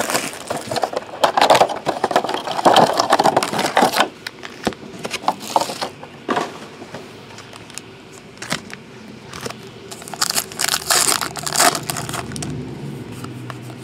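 Clear plastic box wrapping crinkling loudly as it is pulled off for the first few seconds, then quieter rustling and handling. About ten seconds in, a foil trading card pack tears open with a burst of crinkling.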